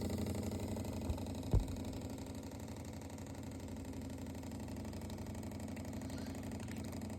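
DeLonghi Magnifica S espresso machine's pump buzzing steadily with a fast pulse, as boiling water sprays out through a pinhole leak in its heating element. One sharp knock about a second and a half in.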